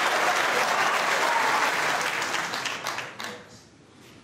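Audience applauding, dying away about three seconds in with a few last scattered claps.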